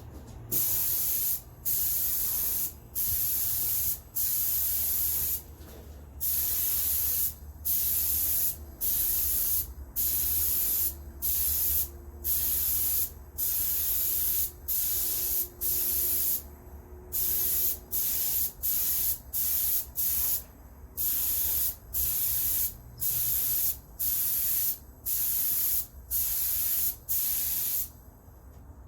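Cerakote coating sprayed onto tail lights in short trigger bursts, a hiss roughly once a second with brief pauses between passes.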